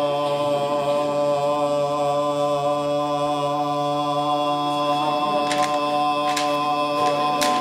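A man's voice holding one long, steady sung note in a chant-like style, with no break for breath. A few short clicks sound over it in the second half.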